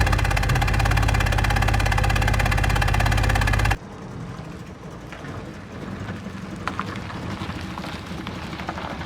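An engine running loud and steady with a rapid even pulse, cutting off suddenly about four seconds in. Faint clicks and knocks follow.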